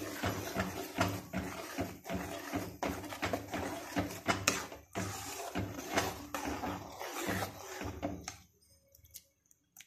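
Metal spoon stirring a thick buttermilk curry in an aluminium kadai, with repeated clinks and scrapes against the pan; the stirring stops about eight seconds in.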